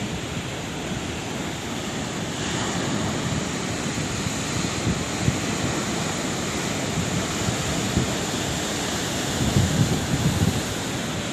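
Sea waves washing on the shore: a steady rush of surf that swells and falls, with a louder low surge about ten seconds in.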